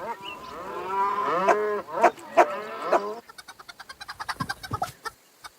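Cartoon cow mooing, a long call that bends up and down in pitch, with a few sharp knocks over it. After about three seconds it gives way to a quick run of light clicks that stops near the end.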